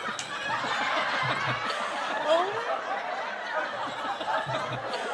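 Three people laughing hard together, several laughs overlapping.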